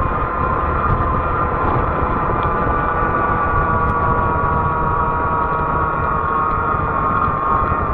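Fat-tire e-bike riding along a paved road: a steady whining hum over low wind rumble.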